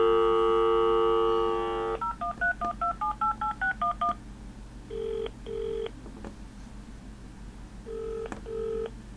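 Panasonic cordless phone on speakerphone: a steady dial tone, then a rapid run of touch-tone keypad beeps as an eleven-digit number is keyed in, then the British double-pulse ringing tone, twice.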